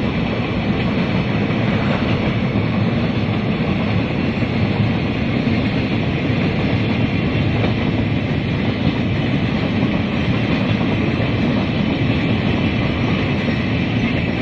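Loaded flat wagons of a long freight train rolling over a concrete railway viaduct, a steady loud noise of wheels on rails.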